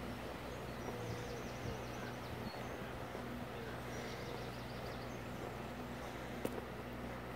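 Park ambience: a small songbird sings two short runs of high, quickly repeated chirps over a steady outdoor background hum, with one sharp click near the end.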